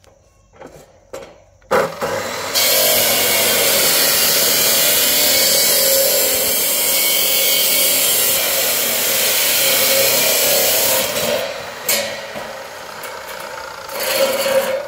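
Power saw cutting on a building site. A few knocks come first, then the cut starts suddenly about two seconds in and runs loud and steady until it eases off near eleven seconds. A second short cut comes near the end.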